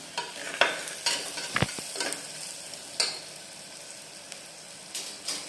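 Metal spatula scraping and knocking against the inside of an aluminium pressure cooker as onions and ground spices are stirred in hot oil, over a steady frying sizzle. The scrapes come irregularly, most of them in the first half.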